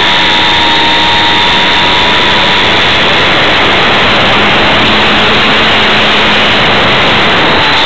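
Radio-controlled model airplane's motor and propeller heard from a camera mounted on the plane in flight: a loud, steady rush of wind and propeller noise with a thin whine that drifts slightly in pitch.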